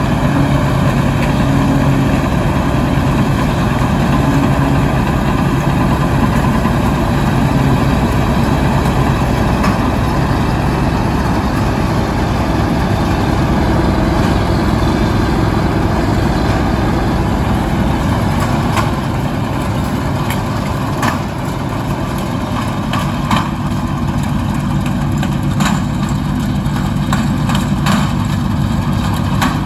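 Dronningborg D2600 combine harvester with a V8 engine running steadily under load while harvesting. It grows a little quieter past the middle as it moves off, with scattered sharp ticks and crackles in the second half.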